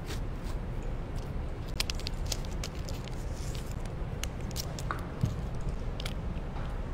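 Scattered light clicks and brief rustles of hands handling a roll of tape and small fishing tackle on a tabletop, over a steady low background hum.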